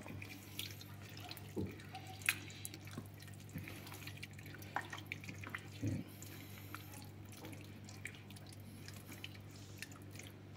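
Silicone spatula stirring soft cooked beans in an enamel pot: faint wet squelching with scattered light clicks and taps. A steady low hum runs underneath.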